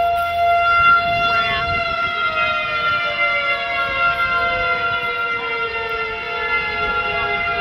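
Outdoor tornado warning siren sounding. A steady tone is held while a second tone slowly falls in pitch from about two seconds in, as the siren winds down.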